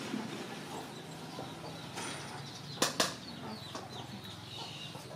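Chickens clucking faintly in the background. Two sharp clicks come close together about three seconds in.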